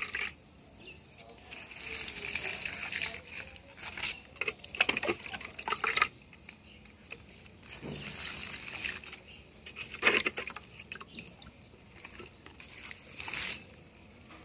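Castor-bean-cake fertilizer water being poured from a cup into potted ferns, trickling and splashing over the leaves and soil in several separate pours.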